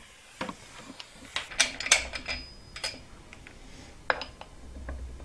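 A scatter of sharp metallic clinks and knocks, most of them bunched around the middle with a brief ring and one more near the end: the Subaru crank pulley (harmonic balancer) and its bolt being taken off the engine by hand.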